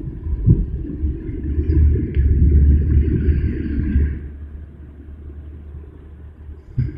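Automatic car wash brushes and water scrubbing over the car, heard from inside the cabin as a low rumble that swells about two seconds in and eases off after about four seconds.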